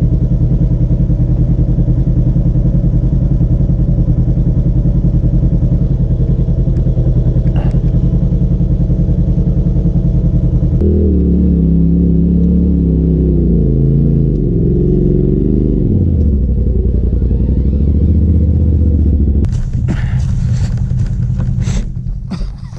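A side-by-side UTV engine running steadily; about eleven seconds in its note changes abruptly to a lower, wavering pitch that drops further around sixteen seconds. Near the end a rapid run of clattering knocks joins the engine.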